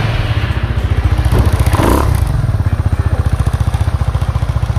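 Italjet Dragster 200's single-cylinder four-stroke engine idling with an even, rapid pulsing beat from its exhaust. There is a brief burst of rattly noise about a second and a half in.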